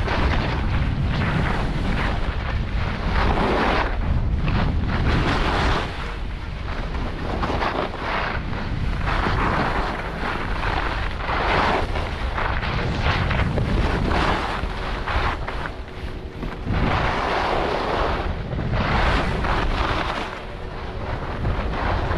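Wind buffeting the microphone of a camera carried by a downhill skier, a heavy rumble throughout. Over it, the hiss and scrape of skis on packed snow swells and fades every second or two with the turns.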